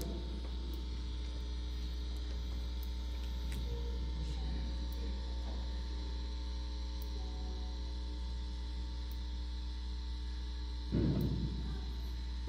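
Steady electrical mains hum with no speech, and a brief louder sound near the end.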